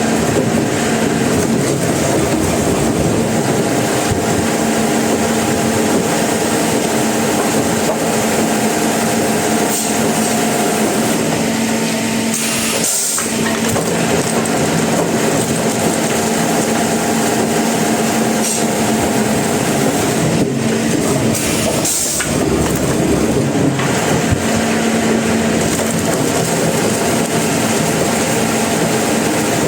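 Sawmill machinery running: a loud, steady mechanical noise with a constant hum, dipping briefly twice, about halfway through and again a few seconds later.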